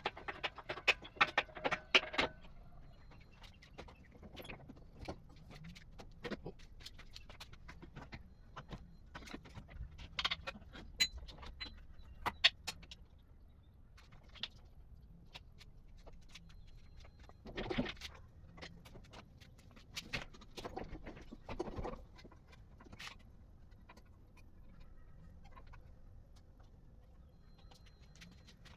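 Scattered metallic clinks and rattles from work on the car's engine bay, loudest in a cluster of clinks near the start, with more bursts around ten to twelve seconds in and again around eighteen and twenty-one seconds in, over a low steady hum.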